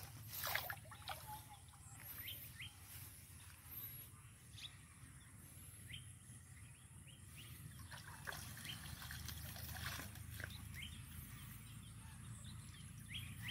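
Outdoor ambience of small birds chirping: short, rising chirps about once a second, over a low steady rumble, with a brief knock about half a second in.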